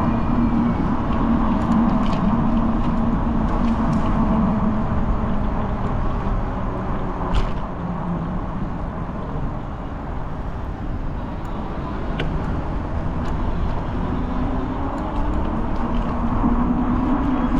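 Steady road-vehicle noise: a low rumble with an engine hum that fades through the middle and comes back near the end, with a few faint clicks.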